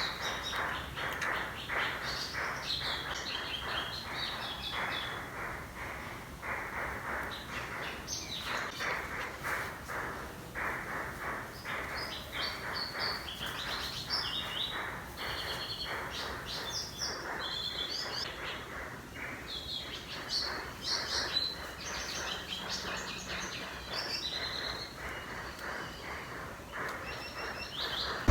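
Birds chirping and calling continuously: short, quick high chirps over a steady, fast pulsing chatter.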